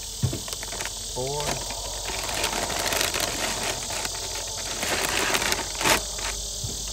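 A steady insect chorus shrilling in the grass, with a sharp knock near the start and another, louder one near the end as squirrels and a bag are handled on a truck tailgate. A short murmur of a man's voice comes about a second in.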